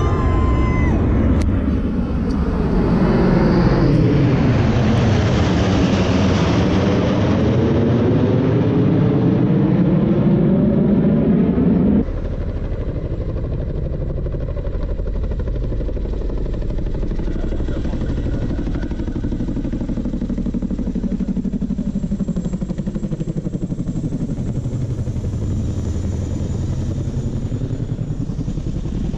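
Nine BAe Hawk T1A jets flying past in formation: loud jet noise whose pitch sweeps down and back up as they pass overhead. About twelve seconds in it cuts to a quieter, steady rotor and engine sound of two Boeing Chinook HC6 twin-rotor helicopters flying by.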